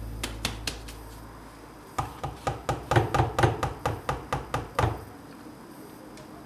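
Plastic measuring jug being tapped against the rim of a plastic mixing bowl to knock the last flour out while pouring. A few light clicks come first, then about two seconds in a quick run of about fifteen knocks, some five a second, which stops near the five-second mark.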